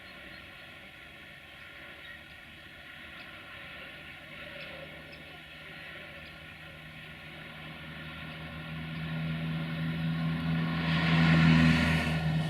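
Steady electrical hum and fan drone of a standing electric locomotive. A louder passing vehicle sound builds from about two-thirds of the way in and is loudest near the end.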